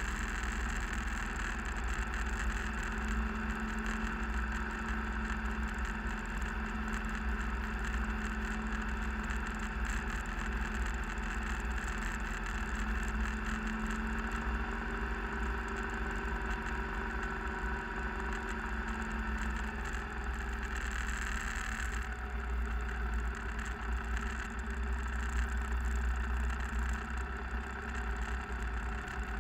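Motorcycle engine running steadily at cruising speed on a snowy gravel road, with heavy wind rumble on the microphone.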